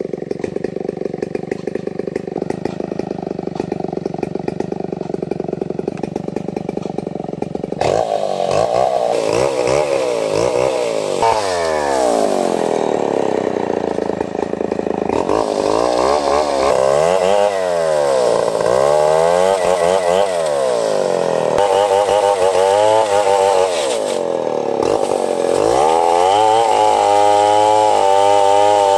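Stihl 070 two-stroke chainsaw running steadily. From about eight seconds in it revs up and down again and again as it cuts lengthwise through ulin (Borneo ironwood) to make planks.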